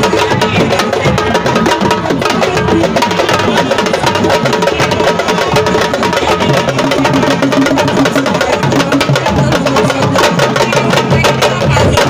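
Group drumming: fast, dense hand-drum strokes overlapping without a pause.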